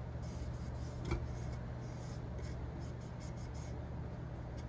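Alcohol-soaked cotton pad rubbing along the stainless steel rim of a glitter tumbler in a series of short scrubbing strokes, with a light knock about a second in, over a low steady hum.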